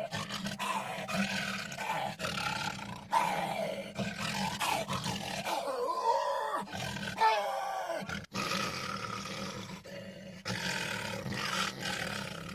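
A man roaring and growling animal-like into a galvanised metal trash can held up to a studio microphone, the can's hollow, ringing body colouring the voice. The roars come one after another with short breaks, rising and falling in pitch.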